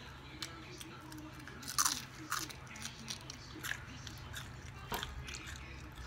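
Crunching bites into the crisp tail of a fried perch, air-fried with seasoning and no batter, then chewing. One sharp crunch about two seconds in is the loudest, with lighter crunches after it.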